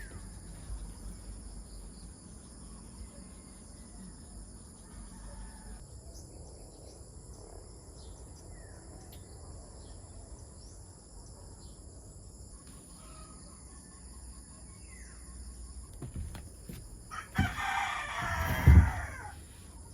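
A rooster crows once near the end, a loud call about two seconds long. Steady high insect trilling runs underneath, with a few faint bird chirps earlier.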